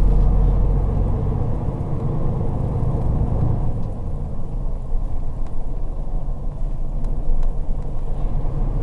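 Steady low rumble of a moving bus's engine and road noise, heard from inside the passenger cabin.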